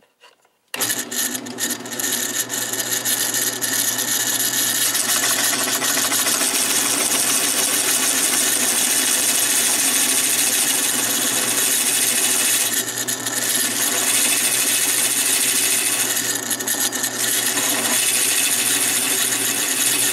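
Drill press starting about a second in and running steadily as a 1/2-inch hole saw cuts down into a wooden board to a set depth. The cutting noise eases briefly twice, in the second half.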